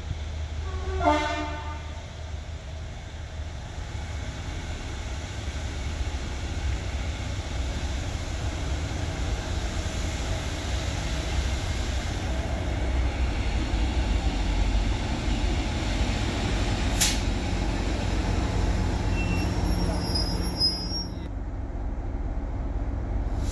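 Class 73 locomotives at the head of a railhead treatment train give one short horn toot about a second in. They then approach with a rumble of engine and wheels that grows steadily louder as they draw alongside the platform. A single sharp click sounds late on.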